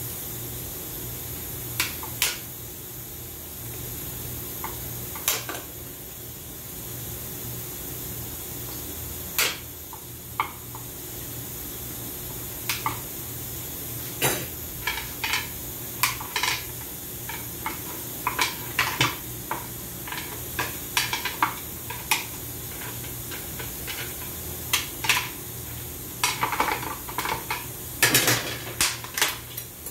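Hand tools clinking and scraping on metal automatic-transmission parts as pliers and a pick work inside the case: scattered sharp metallic clicks that come thicker toward the end, over a steady low hum.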